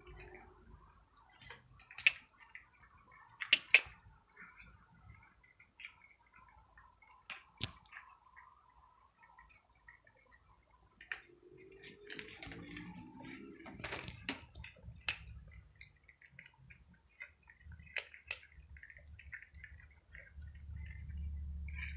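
Cats chewing dry kibble: irregular small crunches and sharp clicks, loudest a few seconds in. A low rumble comes in near the end.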